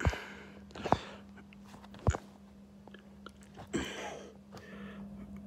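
Four short, sharp, breathy bursts from a person close to the microphone, at uneven gaps over about four seconds, with a steady low hum underneath.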